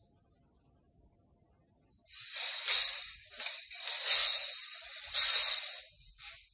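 Metal tape measure, its steel blade rasping as it slides through the case, in several swells over about four seconds starting about two seconds in, then one short rasp near the end.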